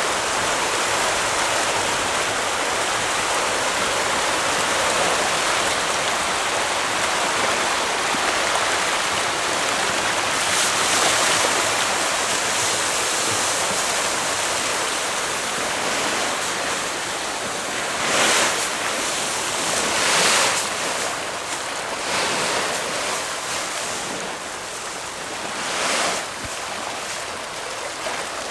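A dense crowd of tra catfish (pangasius) thrashing and splashing at the surface in a feeding frenzy as pellet feed is poured in: a steady churning splash with a few brief louder surges.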